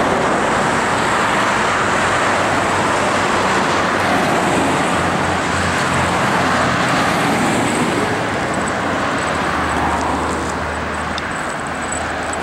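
Road traffic passing on a street: a steady wash of tyre and engine noise over a low rumble, easing a little near the end.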